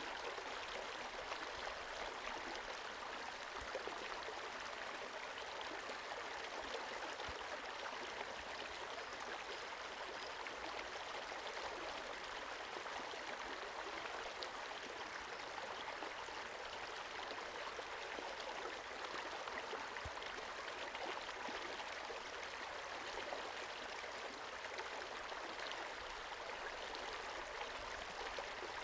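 Small forest creek flowing steadily, a continuous babble of running water with fine splashing and trickling.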